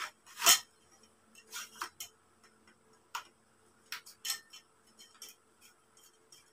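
Metal poles of a telescopic clothes rack knocking and clinking against each other as they are handled: one loud knock about half a second in, then a scattering of lighter, irregular clicks.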